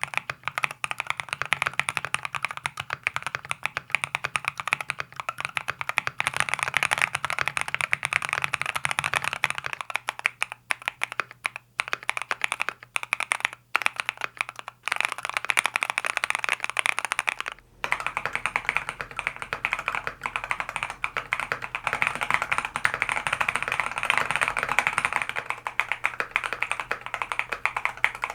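Fast typing on a Thera75 V2 mechanical keyboard with Lotus switches, in its top-mount configuration: a dense, continuous run of keystroke clacks, broken by a brief pause a little past halfway.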